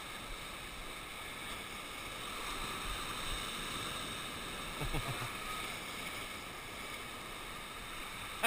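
Sea waves breaking and washing over a flat rock shelf, a steady rush of surf that swells a little partway through.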